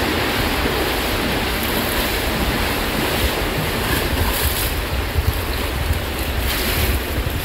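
Pool water splashing and churning under a swimmer's strokes, close to the microphone: a loud, steady wash of splashing noise.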